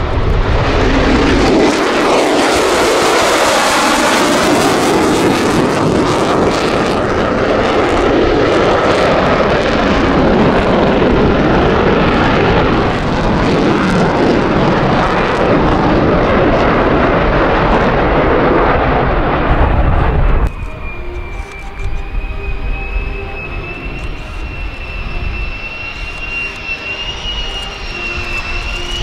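A Lockheed Martin F-35A's single Pratt & Whitney F135 turbofan passing low overhead: loud jet noise with tones that sweep in pitch as it goes by. About two-thirds of the way through it cuts abruptly to a quieter, steady high turbine whine as the jet lands, the whine rising slightly near the end.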